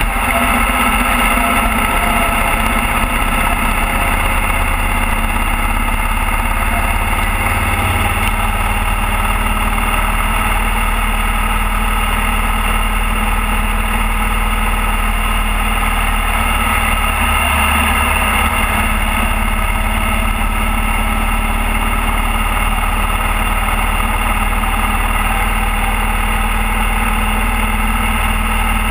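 Motorcycle engine running steadily while riding along the road, with constant wind and road noise.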